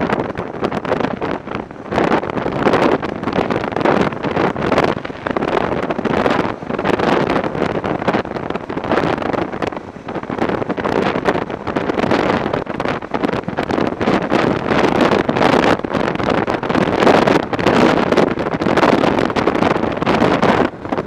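Wind rushing and buffeting over the microphone of a BMW F650 motorcycle on the move, with the bike's running and road noise beneath. The loudness rises and dips unevenly throughout.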